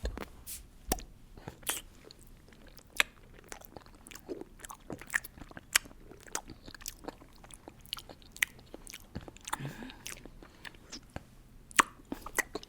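Close-miked chewing of gummy jelly candies: a string of short, wet clicks and smacks from mouths working the chewy jelly.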